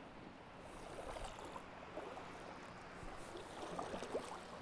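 Faint river water running over shallow rocks, with small scattered splashes and trickles.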